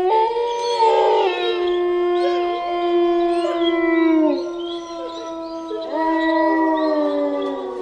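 Wolves howling: long, held howls that overlap, one sliding down in pitch about four seconds in and a fresh howl rising in around six seconds.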